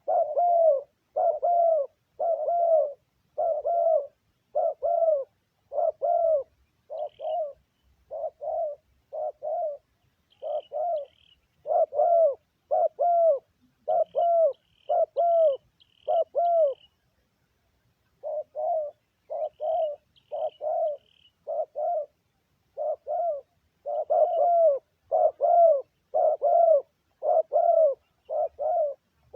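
Spotted dove cooing: a steady run of short, arched, low coos, a little over one a second, with a pause of about a second and a half a little past halfway. Faint high chirps from small birds come in now and then.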